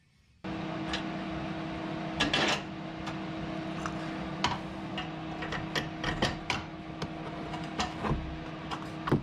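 A steady mechanical hum starts abruptly about half a second in, with scattered metallic clicks and clinks of suspension bolts and nuts being handled and fitted into the upper control arm mounts.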